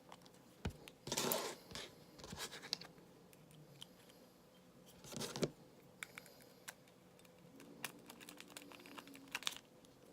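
Small clicks and scrapes of a lock pick and tension wrench working the pins inside a cheap padlock, with two louder scraping bursts, about a second in and about five seconds in.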